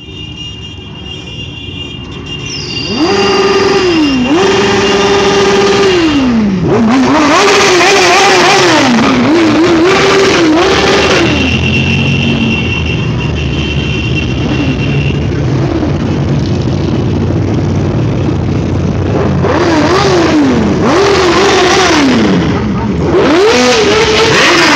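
A procession of motorcycles, a trike and scooters passing at low speed, engines running and revving. Over it a loud whine rises, holds and falls in pitch over and over.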